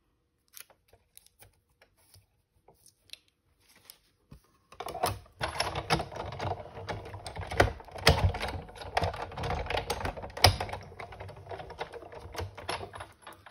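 A few scattered light clicks of a die and paper being handled. Then, a little under five seconds in, a die-cutting machine runs the die and paper through with a fast, dense clatter of clicks that lasts about eight seconds and stops just before the end.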